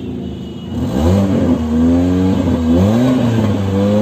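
Tata Indigo Manza's engine revved from idle: the pitch climbs about a second in, holds, then drops and rises again in repeated blips of the throttle.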